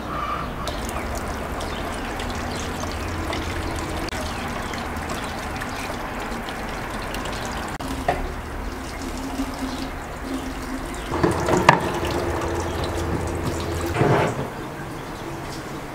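Water running from a kitchen tap into a plastic bowl in a stainless-steel sink, with a few knocks and clatters as the bowl is handled.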